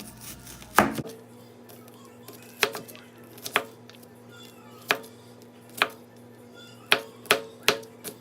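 Chef's knife dicing a red onion on a cutting board: about eleven sharp, irregular knife strikes, with a quick run of several near the end, over a steady low hum.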